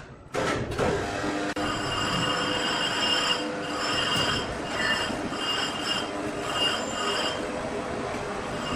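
Sawmill saw running through a log, with a steady high-pitched squeal that swells and fades over and over.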